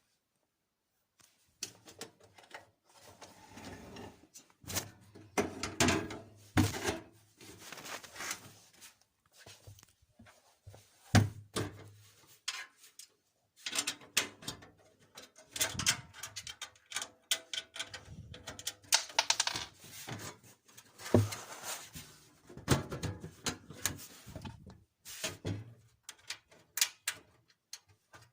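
Hands handling desktop PC hardware during a RAM install: an irregular run of plastic and metal clicks, taps and knocks with rustling and scraping, broken by a few short pauses.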